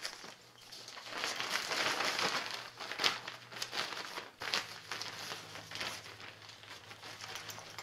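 Lightweight waterproof stuff sack crinkling and rustling as it is handled and shaken out, with sharper crinkles about three and four and a half seconds in.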